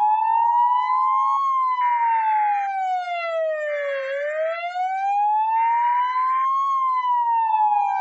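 Emergency alert (EAS) alarm playing: a siren tone wailing slowly up and down, rising for about a second and a half, then falling and rising again over about five seconds. Three short blasts of a steady, higher buzzing tone come about two seconds apart, and a steady lower tone sounds near the start and again near the end.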